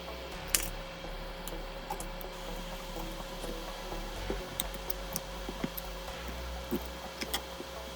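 Scattered small clicks and taps of repair tools handled on a phone, over a steady low hum. One louder click comes about half a second in, and a few quick ticks follow near the end.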